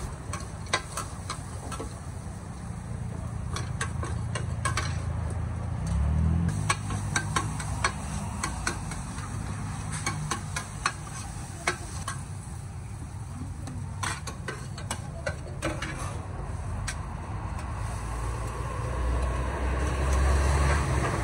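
Metal spatulas scraping and clacking against a large wok as noodles and egg are stir-fried, with many irregular sharp clacks over the sizzle of frying. A steady low hum runs underneath.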